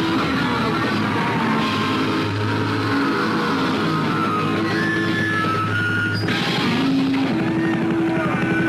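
Loud punk rock music with distorted electric guitar.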